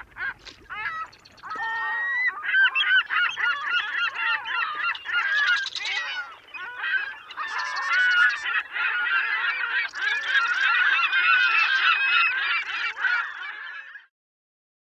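A flock of birds calling, many overlapping honking calls, cutting off suddenly near the end.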